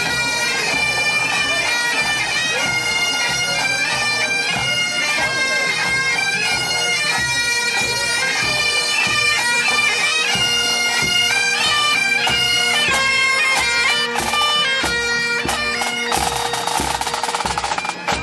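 Bagpipes playing a marching tune over a steady drone, with drums beating beneath. About two seconds before the end a loud rushing noise covers the upper range.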